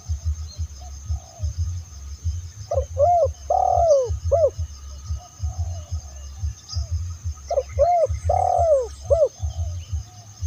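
Spotted dove (tekukur) cooing: two phrases of several short, arching coo notes, one about three seconds in and one about eight seconds in. A low irregular thudding runs underneath throughout, with a steady high-pitched buzz above.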